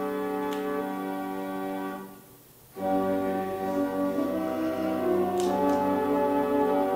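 Organ playing slow, held chords. The chord dies away about two seconds in, and a new phrase begins just under a second later. A couple of faint light clicks sound over the music.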